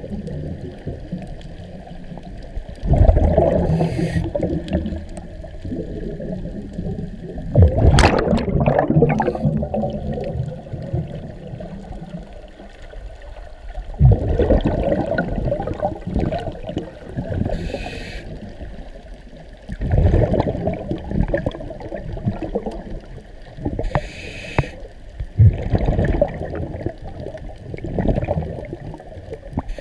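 Muffled underwater sound picked up by a camera in its housing: a low watery rush with gurgling bubble surges returning about every five or six seconds, like a diver's breathing.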